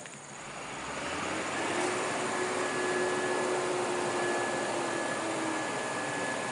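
Vehicle engine running on the road, a steady noisy drone with a faint whine that builds up over the first two seconds and then holds.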